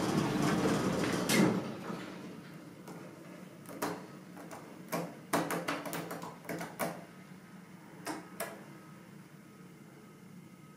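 Hydraulic elevator car: its running rumble dies away over the first couple of seconds and ends in a clack as the car stops. A series of sharp knocks and rattles follows from the car's sliding doors, over a faint steady hum.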